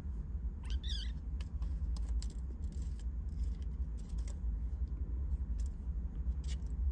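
A kitten gives one short, high mew about a second in, over a steady low rumble, with scattered light scratching and rustling as it plays on the blankets.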